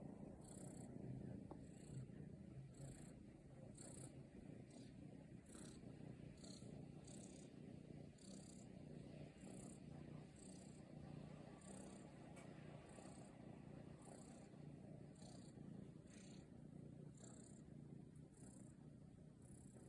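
Munchkin cat purring steadily and faintly, with soft high hissy sounds about once a second.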